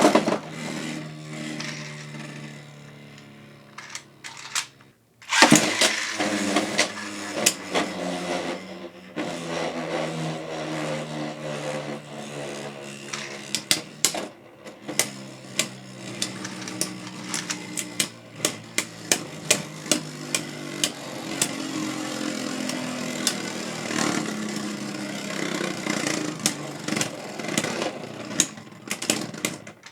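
Beyblade X spinning tops, among them a Draciel Shield 7-60D, whirring in a stadium with a steady hum, broken by many sharp clicks as they clash. Near-silence about five seconds in, then a loud new launch starts the next battle.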